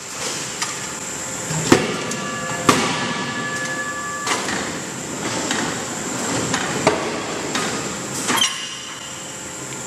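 Connecting-rod forging line: about six irregular heavy metal clanks and blows from the roll-forging machine and forging hammer as a hot billet is worked. One blow leaves a ringing tone for over a second, all over a steady machine hum with a thin high whine.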